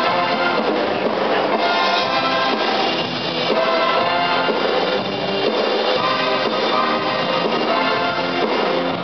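Loud music played over a sound system.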